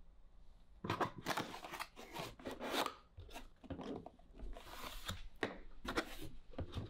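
Cardboard inserts and paper wrap of an Apple iMac box being handled and pulled open: a run of scraping, rustling noises of card and paper sliding against each other, starting about a second in.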